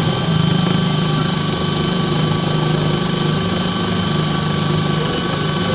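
XT-180 high-pressure washer running steadily: an even motor hum with a high, steady whine over it.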